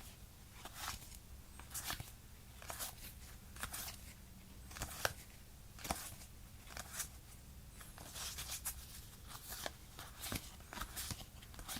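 Irregular soft clicks, taps and rustles of Pokémon trading cards and their packaging being handled close to the microphone.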